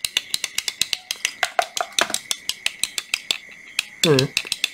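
Makita 18V cordless fluorescent work light ticking rapidly and irregularly over a steady high whine as it tries to light its upper tube, which comes on only now and then. A short voiced grunt comes about four seconds in.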